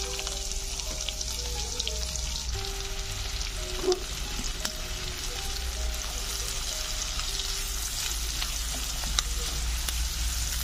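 Sliced onions sizzling steadily as they fry in hot oil in a nonstick kadai, stirred with a silicone spatula. There are two brief knocks, about four seconds in and again near the end.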